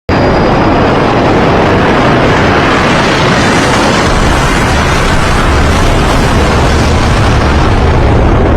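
Fighter jet engine noise, loud and steady, cutting in suddenly from silence, with a heavy low rumble and a faint high whine in the first second.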